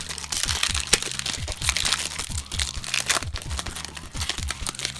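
Foil wrapper of a Pokémon trading-card booster pack being torn open and crinkled in the hands: a dense, continuous run of crackles.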